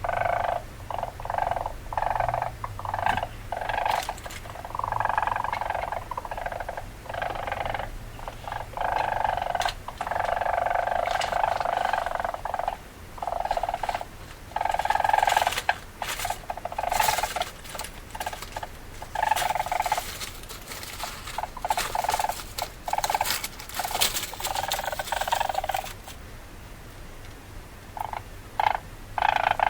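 Weasel calling in repeated bursts broken by short gaps, with sharp clicks mixed in and a pause of about two seconds near the end.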